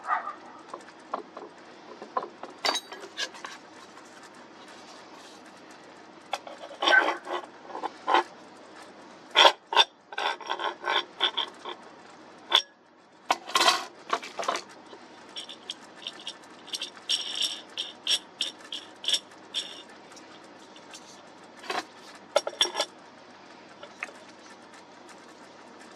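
Irregular clicks, taps and scrapes of small hard objects being handled, in scattered clusters over a faint steady hum.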